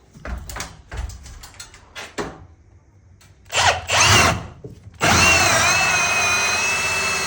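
Power drill spinning a Diablo hole saw into semi-wet wood: a few short bursts and knocks, then from about five seconds in the drill runs steadily with a high whine. The hole saw is not cutting through, just sitting in the wood.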